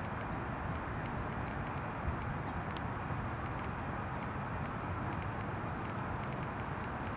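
Steady outdoor background rumble of distant traffic, with a few faint high ticks and one sharper tick about three seconds in.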